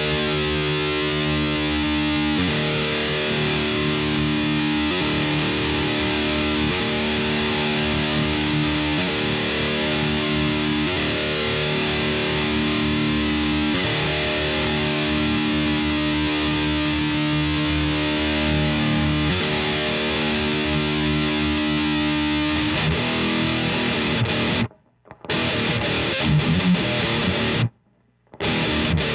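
Electric guitar through a ThisHeavyEarth Grim distortion pedal, playing heavy distorted chords, each held and then changed every couple of seconds. Near the end the playing is cut by two short, sudden stops.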